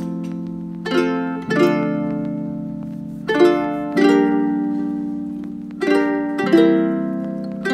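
Background music of gently plucked string chords, each struck and left to ring out and fade, a new chord every second or two.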